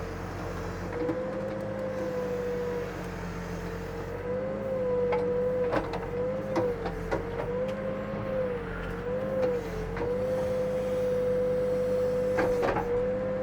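Backhoe running while digging: the diesel engine rumbles under a steady hydraulic whine that wavers slightly in pitch, with a few sharp knocks from the bucket and linkage about halfway through and again near the end.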